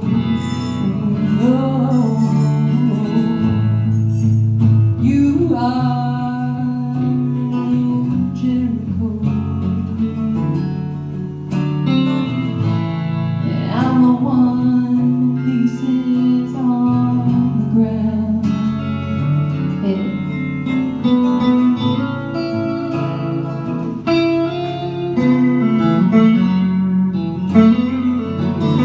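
Live duo performance: a woman singing over her strummed acoustic guitar, with an electric guitar playing along.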